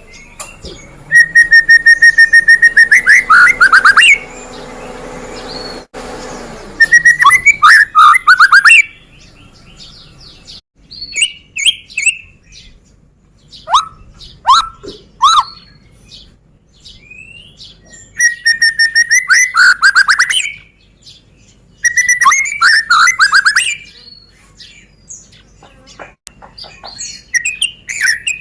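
White-rumped shama (murai batu) singing loud phrases, each opening with a held whistle and breaking into rapid repeated notes, four phrases in all, with short sharp call notes between them.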